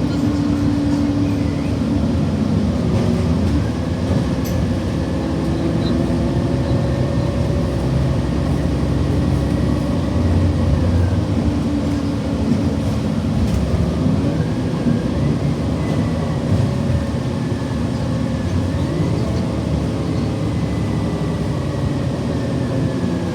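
City transit bus engine and drivetrain running under way, heard from inside the bus, with a steady rumble whose pitch rises and falls several times as the bus changes speed.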